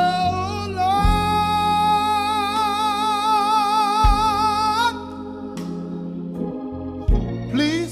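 A man singing a long held gospel note with vibrato, rising slightly in pitch, over sustained organ chords. The voice stops about five seconds in and the organ carries on alone until a new sung phrase starts near the end.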